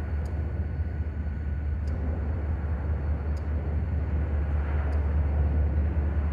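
Diesel locomotives of a Norfolk Southern freight train working under power as they pull out and approach from a distance: a steady low rumble.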